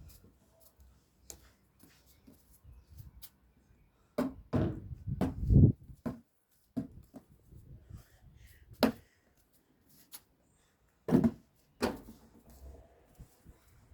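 A ball thudding several times at uneven intervals, a quick cluster of thumps in the middle and single thumps later, with quiet between.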